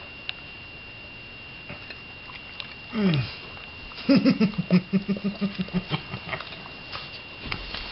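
Two dogs play-fighting, mouthing each other's faces: a short falling groan about three seconds in, then a rhythmic pulsing growl that fades over about two seconds, with light clicks and scuffles throughout.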